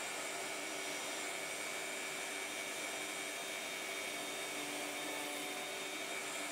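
Table-mounted router running steadily at a low speed setting with a large 3/4-inch roundover bit, an even whine and rush as a wooden blank is fed past the bit to round it into a dowel.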